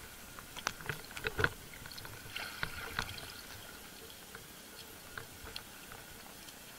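Underwater sound picked up by a camera mounted on a speargun: a steady hiss with a scatter of sharp clicks and knocks in the first three seconds, the loudest about a second and a half in, then only the hiss with a few faint ticks.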